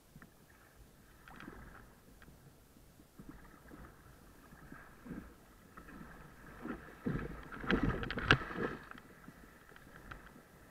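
Choppy sea water slapping and splashing against a kayak's bow in irregular bursts, with a run of louder splashes from about two-thirds of the way in as a breaking wave washes around the bow.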